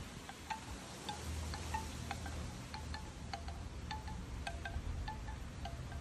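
Bamboo wind chime, its tubes knocking together irregularly in the breeze, each knock ringing briefly. Wind rumbles on the microphone underneath, stronger from about a second in.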